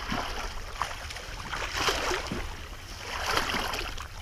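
People wading through thigh-deep water, the water sloshing and splashing around their legs, swelling with the strides about two seconds in and again near the end.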